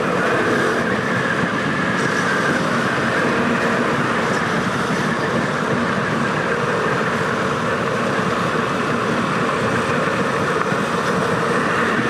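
Motorcycle running steadily at a cruise, with engine drone mixed with wind and tyre noise on the bike-mounted microphone.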